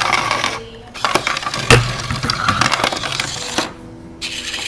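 Clattering, scraping and light knocking of hard objects, like dishes or pans being handled and tapped together, with a sharper knock about two seconds in and two short pauses. It is a re-creation of an unexplained kitchen noise.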